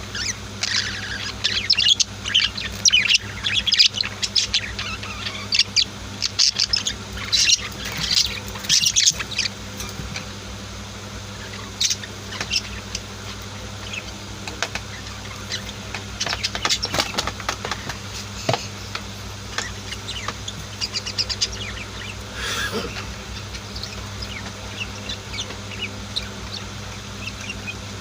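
Pet budgies and lovebirds chirping: many quick, high chirps, busiest in the first ten seconds or so and sparser after, over a low steady hum.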